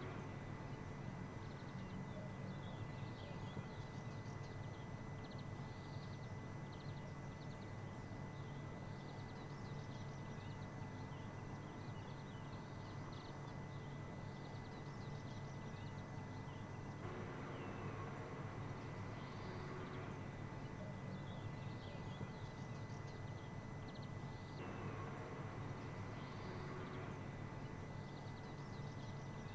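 Faint outdoor ambience: short chirping calls repeat every second or two over a steady low hum and a thin steady high tone.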